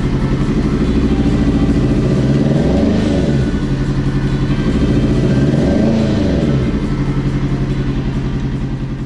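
Kawasaki ZX6R inline-four engine idling on a test run after its restoration. The throttle is blipped twice, about three and six seconds in, and each time the revs rise and fall back to idle.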